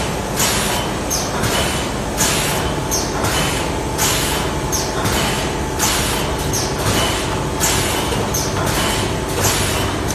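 Automatic pouch filling and sealing machine running, a short hissing, clacking burst repeating about every three-quarters of a second over a steady machine hum.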